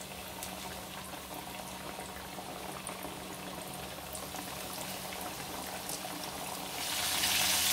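Egg-and-cornstarch-coated chicken pieces deep-frying in hot oil, the oil bubbling and sizzling as pieces are lowered in; the frying grows louder near the end.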